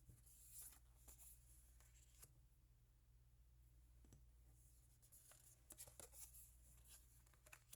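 Very faint rustling, sliding and light taps of stiff cards being handled and set down, in scattered short strokes, over a steady low hum.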